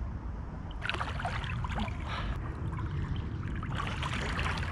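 Shallow river water splashing and sloshing in two bursts as a person moves through it, over a steady low rumble.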